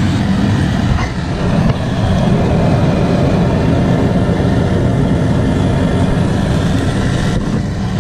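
Handheld gas torch burning with a loud, steady hiss, its flame playing over a Yamaha R6 cylinder head around the valve seats: heat applied to loosen the press-fitted seats for removal.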